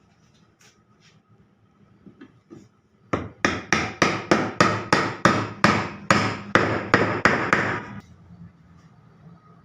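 Hammering during furniture restoration: a quick, even run of sharp blows, about three a second, starting about three seconds in and stopping after about five seconds.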